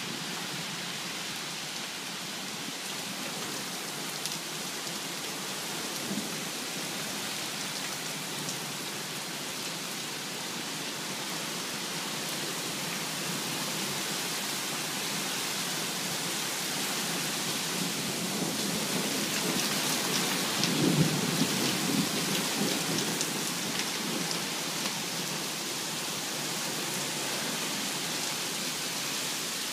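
Heavy thunderstorm rain falling steadily, with a rumble of thunder that swells about two-thirds of the way through and then fades.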